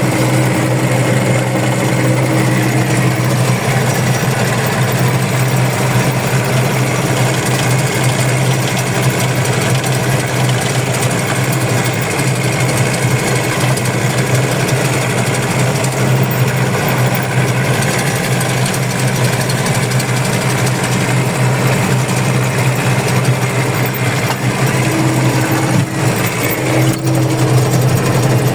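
Engine of peat-harvesting machinery running steadily under work, a loud, constant drone with clattering machinery noise.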